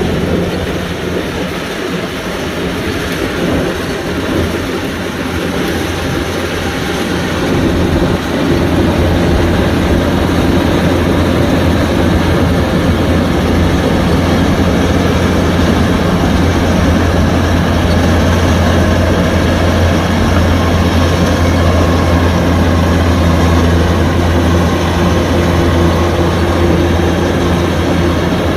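Kubota DC-105X combine harvester running steadily while harvesting rice: a loud diesel engine drone with the machinery's noise over it, growing louder and steadier about eight seconds in.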